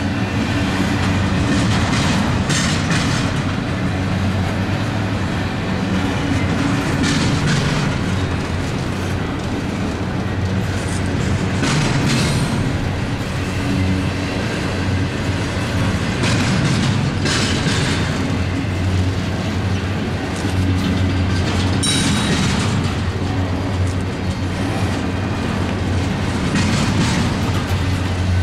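Double-stack container well cars of a freight train rolling past: a steady low rumble of wheels on rail, with a sharper clatter every four to five seconds as wheel sets go by.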